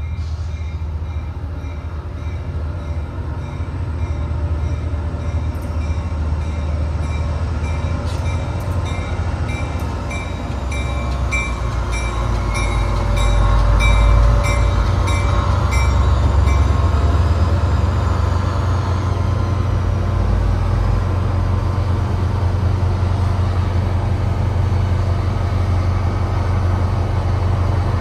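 Diesel locomotive running under a steady low engine drone, growing louder to a peak about halfway through, with its bell ringing about twice a second until it stops a little past halfway.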